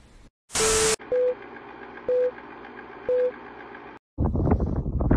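Transition sound effect: a short burst of noise, then three short electronic beeps a second apart over a faint hiss, like a film countdown. From about four seconds in, rough wind noise buffets the microphone.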